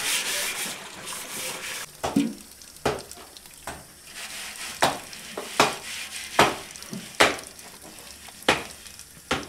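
Scouring pad scrubbing the inside of a metal three-legged potjie pot in a steady scratchy rub, then a run of short, sharp scrubbing strokes about every second as the pot is washed out.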